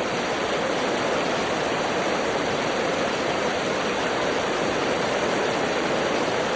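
Steady rush of running water, an even hiss with no distinct splashes or strokes.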